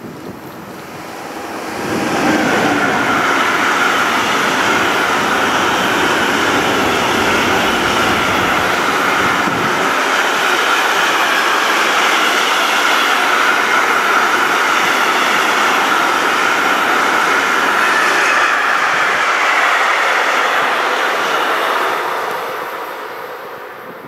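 Long container freight train behind an electric locomotive passing close by: the steady loud rush and clatter of wagon wheels on the rails, building over the first two seconds and fading near the end.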